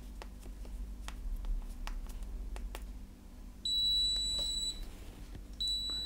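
Keys of a 4x4 matrix keypad clicking as a code is pressed in, then a high electronic beep lasting about a second, signalling the correct code, and a second beep starting near the end.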